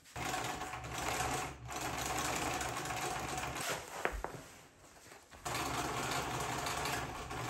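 Sewing machine stitching the base panel of a fabric bag shut, running in steady spells: a brief stop about a second and a half in, then a pause of nearly two seconds around the middle with a single click, before it runs again.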